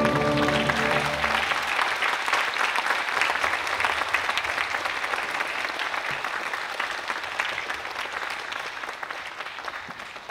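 Audience applauding, slowly fading, after the music's final held chord dies away in the first second or so.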